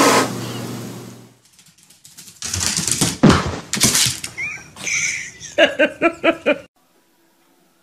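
Thumps and rustling, then a dog gives a quick run of about eight short yaps near the end and the sound cuts off suddenly.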